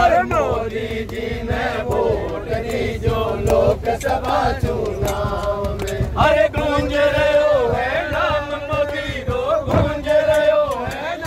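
A group of men chanting and singing a song together in unison, holding a long note for a few seconds past the middle, with hand claps throughout.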